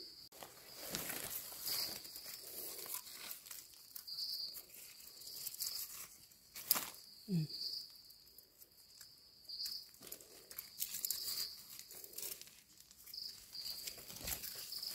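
Rustling of leaves and a knife scraping soil off freshly picked wild mushrooms, over a steady high insect drone that swells every second or two. One sharp click about halfway through.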